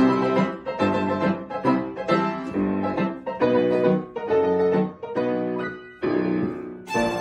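Upright piano played, a run of chords struck about two a second, each ringing and fading before the next.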